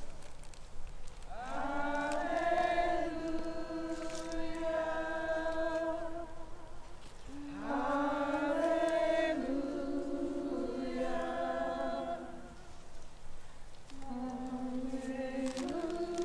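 A group of voices singing together in long held notes: three drawn-out phrases, each starting with an upward slide in pitch.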